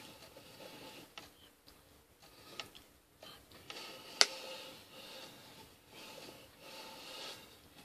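Faint rustling and scattered small clicks from hands and clothing moving during signing, with one sharp click about four seconds in.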